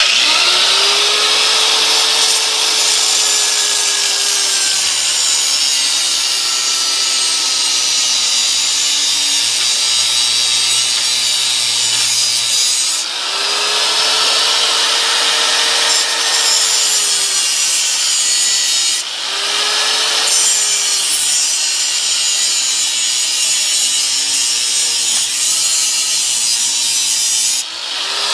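Hand-held angle grinder cutting the seized metal lock ring of a garbage disposal's sink mount. The grinding hiss is continuous, with the motor's whine rising as it spins up and then sagging and recovering as the disc bites, and three brief drops in the cut.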